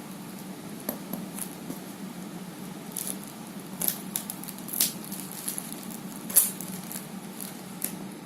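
Packaging being opened by hand: irregular rustling and sharp crackles, the loudest three spread through the middle, over a steady low hum.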